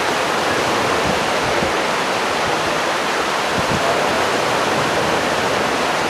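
Spring snowmelt stream flowing, a steady, even rush of water.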